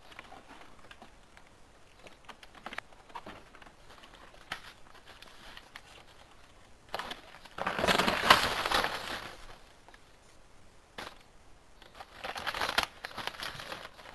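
A fisher's movements in crusted snow and against a birch trunk: faint scattered crackles, then two loud spells of crunching and rustling about eight and twelve seconds in.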